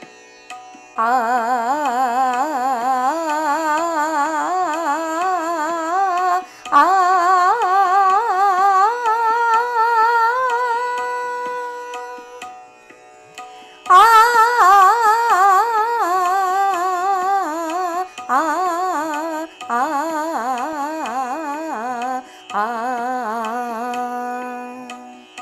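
A voice sings a Raag Bhairav alankar practice pattern on an open vowel over a steady drone. The melody climbs in stepped, wavering phrases for about ten seconds, pauses briefly, then comes back down in falling phrases, with short breaks between the groups.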